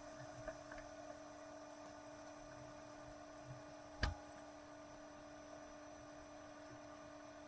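Steady low electrical hum over quiet room tone, with a single short knock about four seconds in.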